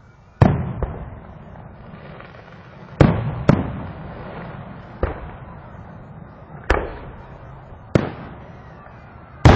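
Fireworks going off: about eight sharp bangs at irregular intervals, each trailing off into an echoing rumble.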